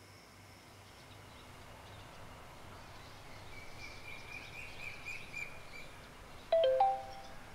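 Quiet morning room ambience with birds chirping faintly, then near the end a short phone message notification chime of a few quick pitched tones.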